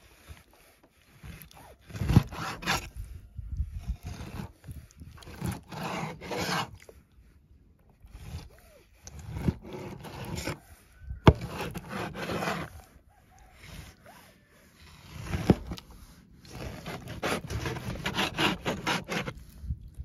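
Repeated bursts of scraping and rubbing strokes against wood, each lasting a second or three with short pauses between, and two sharp knocks partway through.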